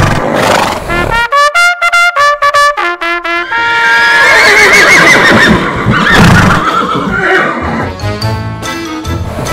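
Brass music with short, bouncy staccato notes, then a horse whinnying over the music about four seconds in, its call wavering up and down.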